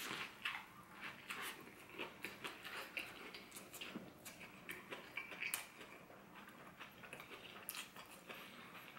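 A bite into a wrap of crispy fried popcorn chicken, then chewing it with the mouth closed: soft, irregular crunches and mouth clicks, roughly one or two a second.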